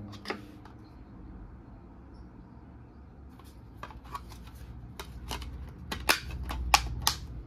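Plastic DVD case being handled and opened, with a run of sharp plastic clicks, loudest near the end, as the disc is pressed onto the case's centre hub.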